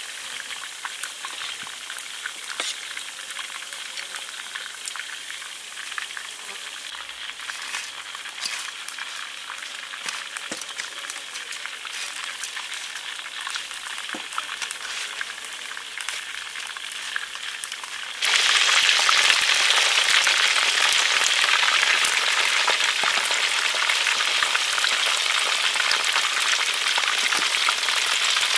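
Breaded food deep-frying in hot oil: a steady sizzle with scattered crackles, which jumps suddenly much louder about two-thirds of the way through and stays loud.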